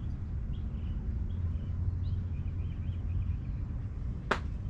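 Outdoor background: a steady low rumble with faint short high chirps, and one sharp click about four seconds in.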